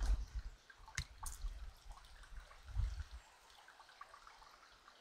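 Faint trickling and dripping of water in a small stone-lined stream. Two light knocks about a second in, and a low rumble over the first three seconds.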